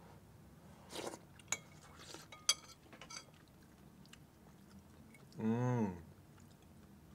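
A person eating soup with a spoon, with a few light clicks and chewing. About five and a half seconds in comes one short hummed "mm" that rises and falls in pitch.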